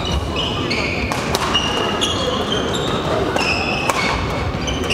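Badminton being played in a sports hall: frequent short, high squeaks of court shoes on the floor and the occasional sharp crack of a racket hitting a shuttlecock, over a steady murmur of voices.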